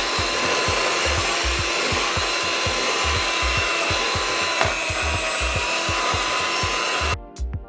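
Old electric hand mixer running steadily as it beats cake batter, switched off suddenly near the end. A steady music beat plays underneath.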